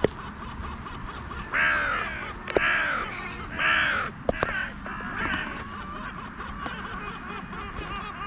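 A crow cawing three times, each caw about half a second long and roughly a second apart.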